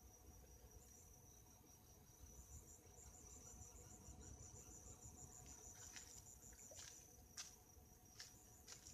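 Faint night insects trilling: one steady high-pitched tone, with a pulsing trill above it that comes in about two seconds in. A few soft clicks and taps sound near the middle and the end.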